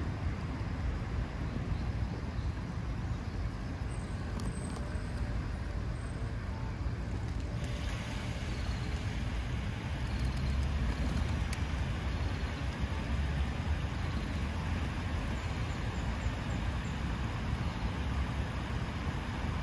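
Fountain water splashing steadily into a pool over a low background rumble. About seven and a half seconds in, a cluster of spray jets starts up and the splashing hiss grows louder.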